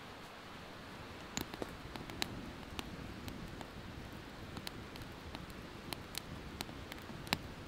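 Sticks burning in a small metal Firebox stove, crackling with irregular sharp pops and snaps over a low hiss. The pops begin about a second and a half in; the loudest comes near the end.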